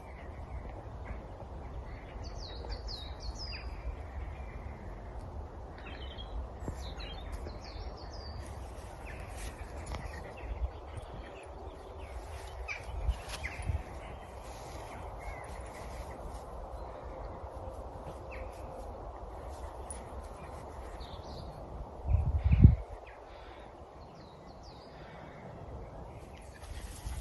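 Birds calling with many short, scattered chirps over a steady background hiss. A loud low thump comes about three-quarters of the way through.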